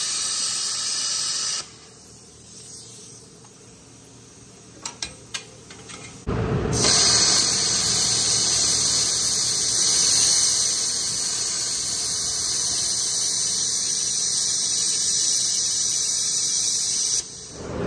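Plasma cutter cutting through metal with a loud, steady hiss: a short cut that stops after under two seconds, a few sharp clicks around five seconds in, then a second cut that runs about eleven seconds before stopping.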